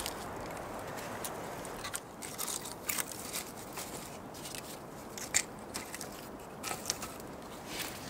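Split firewood logs knocking and clattering as they are stacked onto a woodpile, with crackling of bark and twigs. Irregular sharp clicks, the loudest about five seconds in, over a steady low hiss.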